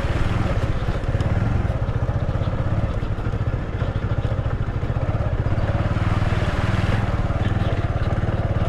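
Motorcycle engine running steadily with an even, rapid firing beat while the bike is ridden off-road.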